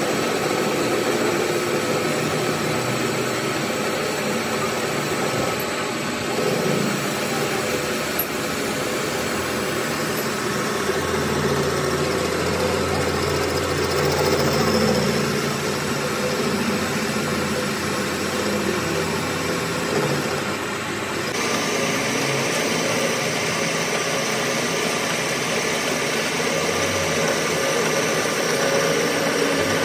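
A workshop machine running steadily with a mechanical hum, its sound shifting slightly about two-thirds of the way through.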